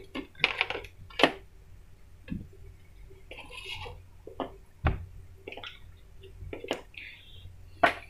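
Irregular small clicks and light knocks as a table fan's plastic-cased motor capacitor is worked out of its metal strap clamp and its wires are handled, with a few sharper knocks among them.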